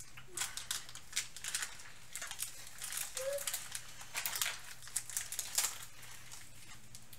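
Crinkling of Trick or Trade trading-card packs and wrappers being handled: a string of short, irregular crackly rustles.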